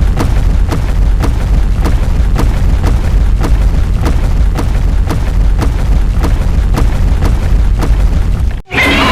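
Loud, deep rumbling kaiju sound effect, boom-like, with a regular sharp pulse about two and a half times a second. It cuts off briefly near the end, and a brighter, hissing effect begins.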